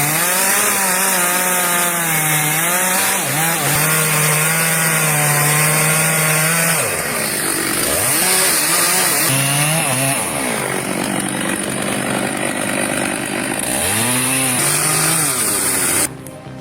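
Chainsaw running at high revs while cutting, its engine pitch dropping and climbing back several times as it is throttled and loaded in the wood.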